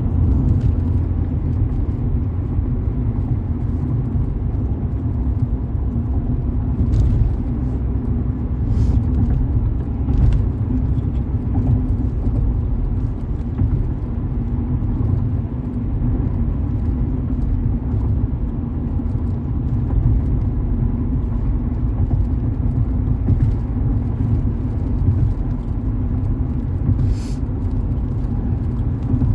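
Steady low rumble of a car driving, heard from inside the cabin: engine and road noise, with a few faint short clicks now and then.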